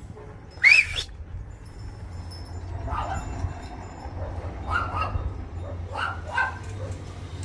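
A dog barking several times in short, spaced barks, after one sharp, high yelp about a second in.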